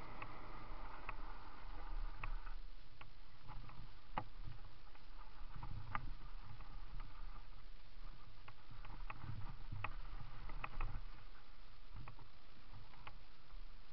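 A mountain bike rolling downhill over gravel and leaf-covered forest trail: a low tyre rumble with frequent sharp clicks and rattles from the bike over the bumps.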